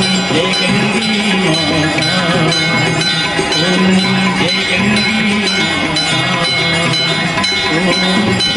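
Temple bells ringing continuously, many held metallic tones overlapping, over a sung devotional aarti hymn with a slow wandering melody.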